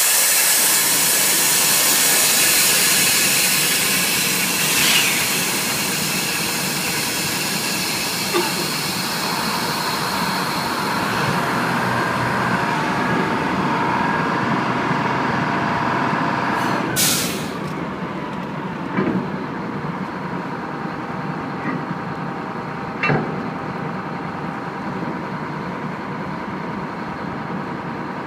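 A loud, steady hiss cuts off suddenly about 17 seconds in. A steady machinery drone remains under it, with a few sharp knocks near the end.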